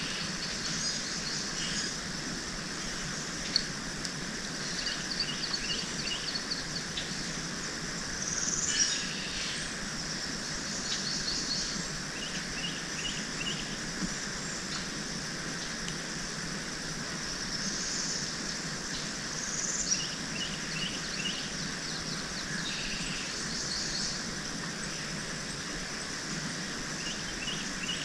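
Birds calling over and over in short quick chirping series, every few seconds, over a steady background hiss.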